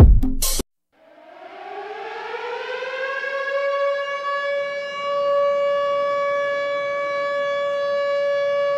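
A burst of music cuts off abruptly in the first second. Then a siren winds up, rising in pitch and loudness over a few seconds, and holds one steady tone.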